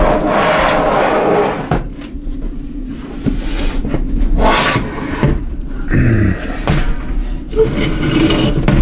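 Knocks, scrapes and clunks of a metal Octominer X12 mining-rig case being handled, coming irregularly.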